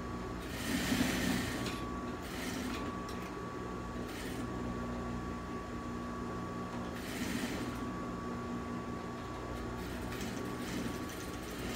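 Industrial sewing machine stitching fabric in several short runs, each a brief rattle, over a steady hum.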